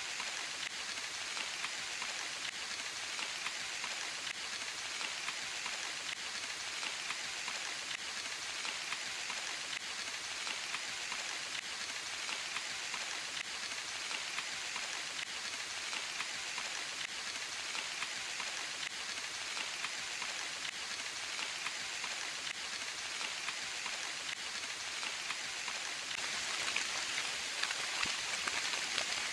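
Steady rain falling, a dense patter of drops that grows a little louder near the end.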